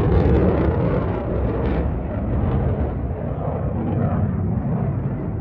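Aircraft engine roar: a loud, steady rumbling noise, slightly loudest at the very start.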